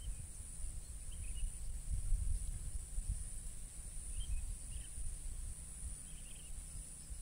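Steady high-pitched drone of insects, with gusty wind rumbling on the microphone and a few faint short bird chirps.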